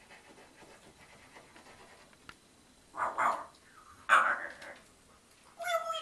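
Animal calls: two short, loud bark-like sounds about a second apart, then a brief pitched whine-like call near the end.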